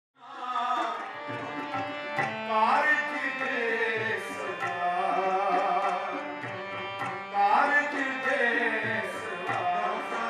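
Sikh devotional hymn singing (kirtan): a voice sung over harmonium and tabla.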